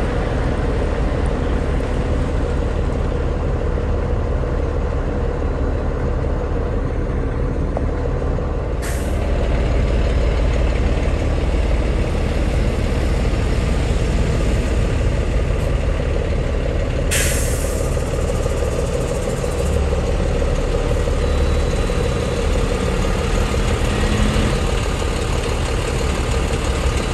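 Heavy truck's engine running steadily as it drives, with a continuous low rumble of engine and road noise. Two air-brake hisses cut through it: a short one about a third of the way in and a longer one about two-thirds of the way in.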